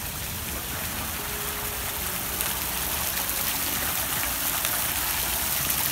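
Fountain jets splashing into a stone basin: a steady rush of falling water, growing slightly louder over the few seconds.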